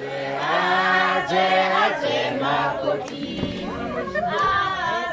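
A group of women singing together in chorus, several voices at once.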